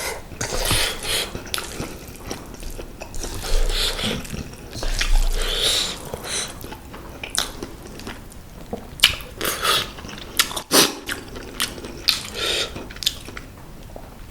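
A person eating spicy mala ramen noodles close to the microphone: irregular wet chewing and biting with small clicks.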